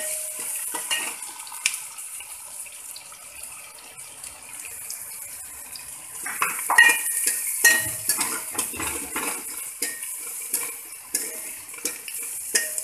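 Chopped onions sizzling in hot ghee in a metal kadai while a steel ladle stirs them, scraping and clinking against the pan. The stirring gets busier and louder about six seconds in.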